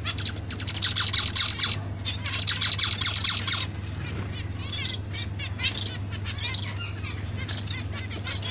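A flock of zebra finches calling: dense, rapid buzzy chatter in two stretches during the first few seconds, then scattered short chirps, over a steady low hum.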